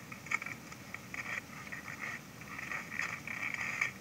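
Irregular scratchy crackling and clicking picked up by an underwater camera beneath lake ice, coming in uneven bursts.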